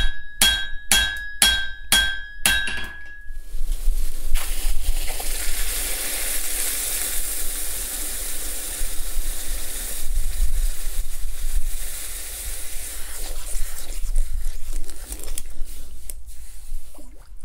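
A blacksmith's hammer ringing on an anvil, about seven even blows in the first three seconds. Then a long steady hiss, typical of hot iron being quenched in water.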